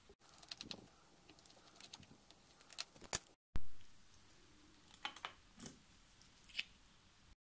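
Scattered light clicks and clinks of small metal parts and tools being handled at a watchmaker's bench. A short sharp thump about three and a half seconds in is the loudest sound.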